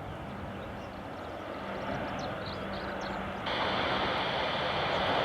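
Aircraft engine noise at the airport: a steady rushing hiss with a faint low hum, growing louder and jumping up suddenly about three and a half seconds in.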